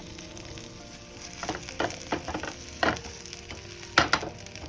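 Ragi (finger millet) rotti sizzling in oil on a hot pan, with a few sharp knocks against the pan, the loudest about four seconds in.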